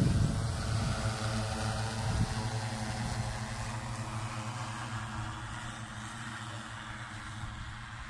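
Multirotor agricultural spray drone's propellers humming at a steady pitch, fading gradually as the drone flies away.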